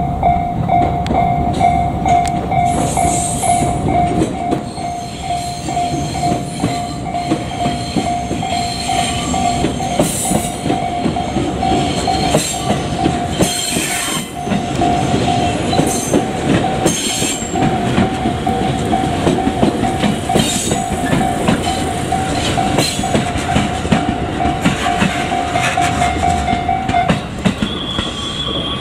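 Level-crossing warning bell ringing steadily while a train passes on the rails. The bell stops about 27 seconds in, and a higher tone starts just after.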